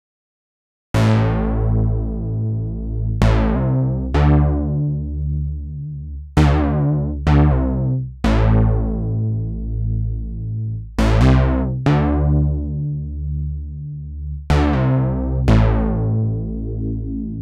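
Arturia JUN-6V software synthesizer, an emulation of the Roland Juno-6, playing its 'Funky Bass' factory preset. A riff of about ten bass notes begins about a second in. Each note starts bright and quickly darkens as the filter closes, leaving a deep sustained tone.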